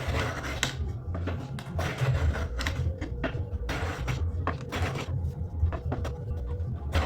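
Irregular sharp clicks and knocks of a wooden saw handle and hand tools being worked on a bench, with short scraping strokes between them, under a faint steady hum.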